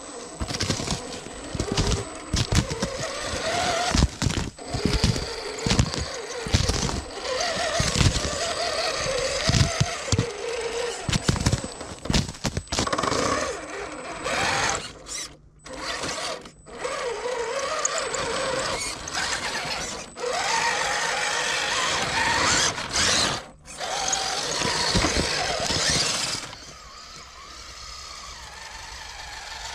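Traxxas TRX-4 Sport RC crawler's electric motor and gear train whining, the pitch wavering up and down as the truck climbs, with its tyres crunching and cracking on crusted snow and ice. About 26 seconds in the sound drops to a quieter level.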